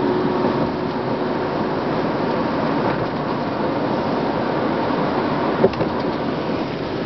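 Steady road and tyre noise of a vehicle driving, heard from inside the cab, with one short knock about five and a half seconds in.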